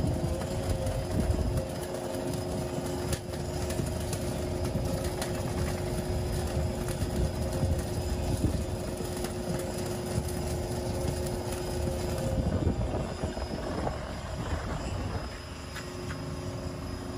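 Holland electric flash butt welding machine flashing a steel crane rail joint: a dense crackle of arcing over a steady electrical hum. The hum changes about twelve seconds in, and the sound drops quieter near the end.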